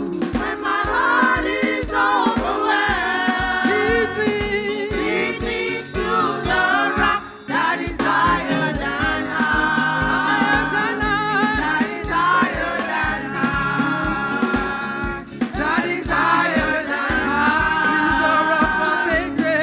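Gospel worship music: several voices sing held, wavering notes over a steady, even drum beat, with a brief drop-out about seven and a half seconds in.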